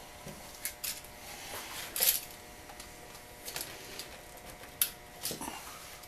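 Screwdriver and the metal terminal screws and mounting strap of a GFCI receptacle clicking and scraping as the receptacle is wired and handled: a series of sharp clicks, the loudest about two seconds in.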